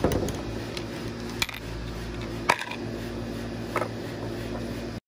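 A handful of sharp clicks and knocks from a screwdriver and hands working on a vacuum cleaner's plastic housing, the loudest about halfway through, over a steady low hum.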